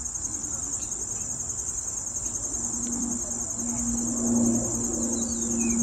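Steady high-pitched trilling of crickets. A faint low hum comes in about halfway through.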